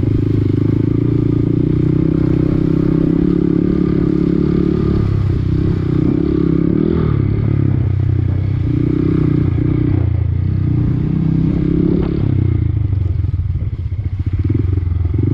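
Honda Grom's small single-cylinder four-stroke engine running as the minibike is ridden off-road, its pitch rising and falling a few times with the throttle.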